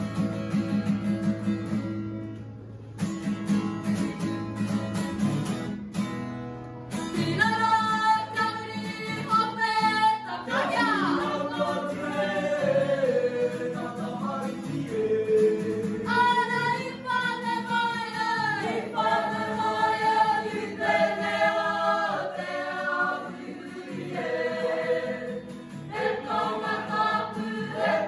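A strummed acoustic guitar plays alone for about the first seven seconds, then a group of voices comes in singing a Māori action song in unison over it.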